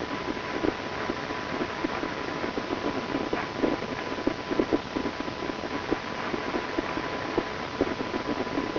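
Steady static hiss with irregular crackling pops and a faint steady tone underneath.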